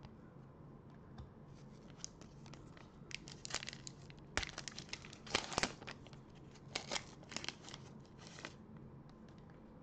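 Trading card pack wrapper being torn open and crinkled by gloved hands: a run of sharp, crackling rips, loudest about halfway through, dying away near the end.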